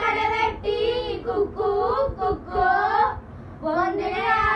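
A group of young boys singing a Tamil song together in short phrases.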